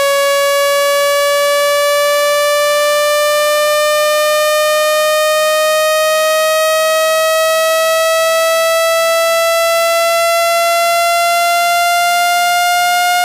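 Speaker-cleaning tone, used to shake water and dust out of a phone speaker: a loud, steady electronic tone rising slowly and evenly in pitch.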